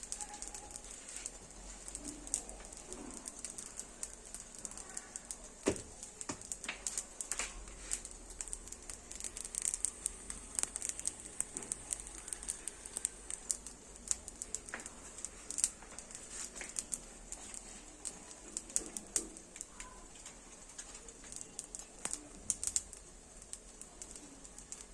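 Beghrir batter cooking in a hot pan, giving a soft steady hiss with scattered small crackling ticks, while a pigeon coos faintly in the background.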